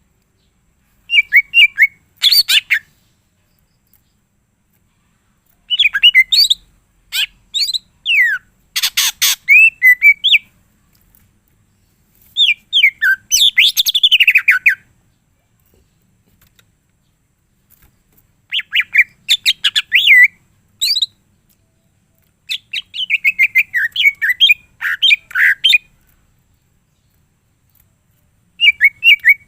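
Cucak ijo (green leafbird) singing in about five bouts of fast, varied chirps, whistled slides and rapid note runs, with silent gaps of a second or more between bouts.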